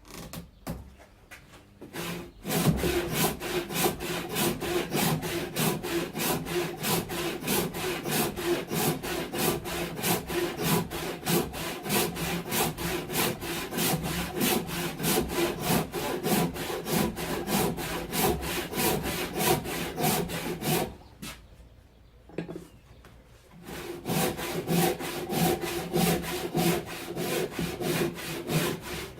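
Hand saw cutting through a beefwood log in quick, steady back-and-forth strokes. The sawing starts a couple of seconds in, stops for about two seconds, then resumes.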